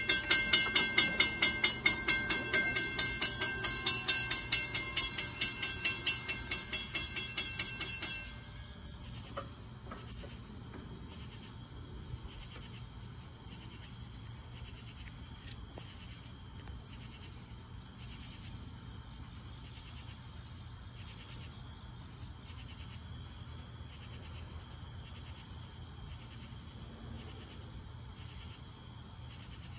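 Railroad grade-crossing bell ringing in an even rhythm of about two to three strikes a second, then stopping suddenly about eight seconds in. After that, crickets keep chirping with a steady high trill and a regular pulse.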